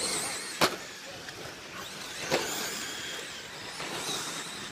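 1/10 scale electric RC stadium trucks with modified electric motors racing on a dirt track: high-pitched motor and gear whine that rises and falls as they accelerate and brake. Two sharp knocks cut through, a loud one about half a second in and another a little past two seconds.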